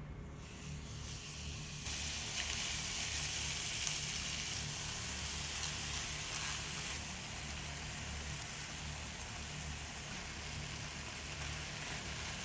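Food sizzling in a frying pan: a steady hiss with light crackles that grows louder about two seconds in, over a low steady hum.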